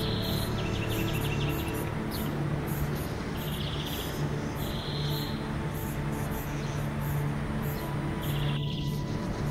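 An insect calling in short buzzy bursts, each about half a second, repeated several times, with a quick run of ticks about a second in, over a steady background hiss.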